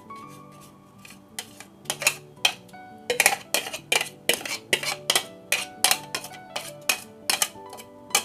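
A metal kitchen utensil repeatedly knocking and clinking against cookware while working freshly blended chili spice paste. The sharp strikes begin about a second in and come two or three a second, over soft background music.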